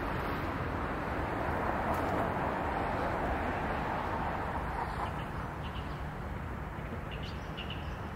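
Outdoor background noise: a steady rushing sound that swells over the first couple of seconds and eases off after about five seconds, with a few faint short bird chirps in the second half.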